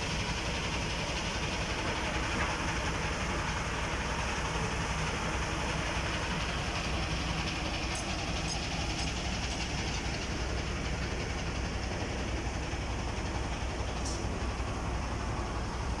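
Concrete mixer pump running steadily at work: a constant low engine drone under broad machinery noise.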